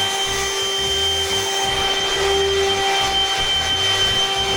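Electric power tool motor running steadily at constant speed with a high whine.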